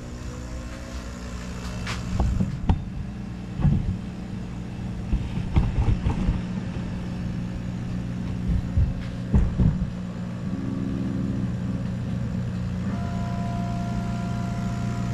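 OMTech 80 W CO2 laser cutter switched on, running with a steady low hum, with several knocks from the camera being handled. Near the end a motor whine sets in as the laser head travels across the bed.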